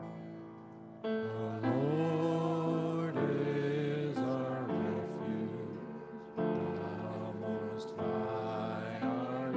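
Psalm refrain sung to a slow melody with held notes over keyboard accompaniment.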